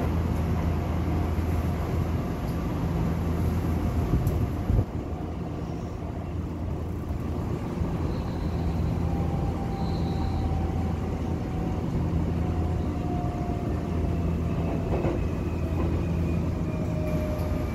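Electric commuter train heard from inside the passenger car: steady running rumble of wheels on rails with a low motor hum, and a single knock about five seconds in. In the second half a motor whine falls slowly in pitch as the train slows for the next station.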